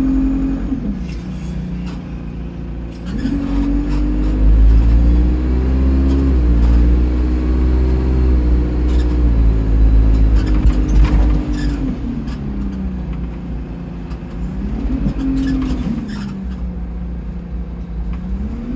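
Diesel bus engine pulling away under load, its note climbing and stepping up through the gears, then falling back as it eases off and rising briefly once more. A faint high whistle rises and falls while it pulls hardest, on a bus whose turbocharger the uploader reports is leaking.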